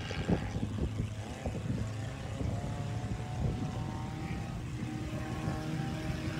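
Formula 1800 open-wheel race cars with 1.8-litre engines running at speed around the oval, heard from a distance. Their engines make a steady drone whose pitch glides slowly up and down as the cars circulate.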